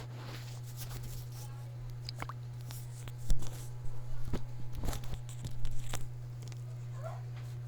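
Slime being squished and stretched by hand, giving irregular crackling clicks and pops that are loudest and busiest in the middle, over a steady low hum.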